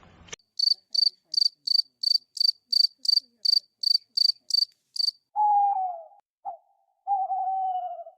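Cricket chirping in a steady run of short, high-pitched chirps, about four a second, which stops about five seconds in. It is followed by a different animal's lower, drawn-out calls, twice, each falling slightly in pitch.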